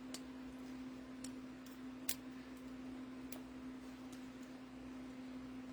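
Faint, scattered small clicks of fingernails and paper as crafting pieces are handled and adhesive backing is picked at, about six in all, the sharpest about two seconds in, over a steady low electrical hum.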